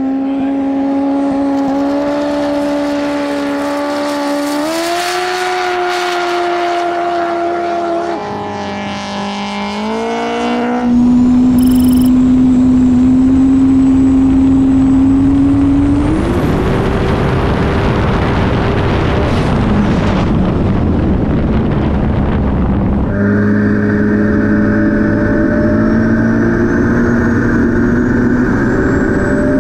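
Turbocharged 1.8 L Yamaha four-cylinder racing jet ski engine running hard at speed, its pitch stepping up several times. From about a third of the way in it is heard onboard, under a heavy rush of wind and water spray.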